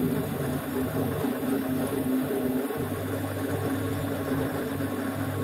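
Mini lathe running steadily, spinning an M16 tap that hobs worm-gear teeth into an aluminium (dural) gear blank turning against it.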